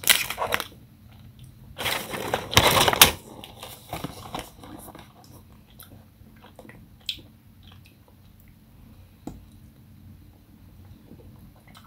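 Packaging rustling in two loud bursts in the first three seconds, then a short crisp snap as an Atkins caramelised white chocolate bar is bitten, followed by quiet chewing.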